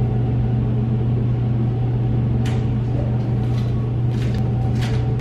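A loud steady low hum throughout, with a few flip-flop footsteps slapping on a tiled floor from about halfway through.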